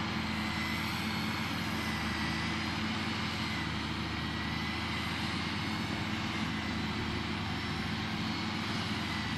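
Tractor diesel engines running steadily under load as a Deutz M610 tows a stuck Fendt 714 and its Horsch Pronto 3 seed drill out of soft ground. Low, even drone with a thin steady whine above it.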